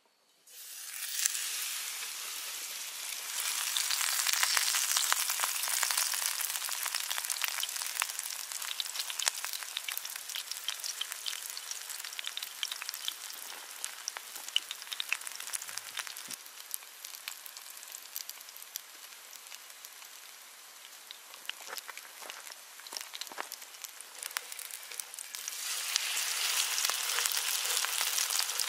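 Battered minari (water dropwort) pancake sizzling and crackling in a hot frying pan. The sizzle starts about half a second in as the battered greens go into the pan. It eases off around two-thirds of the way through and grows louder again near the end.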